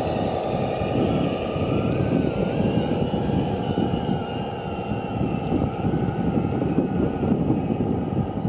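Radio-controlled model construction vehicle running: a steady mechanical rumble with a faint whine that wavers up and down in pitch.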